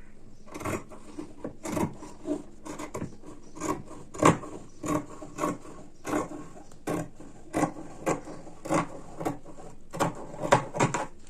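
Fabric scissors cutting cotton lining fabric along a marked line: a steady run of short snips, a little under two per second.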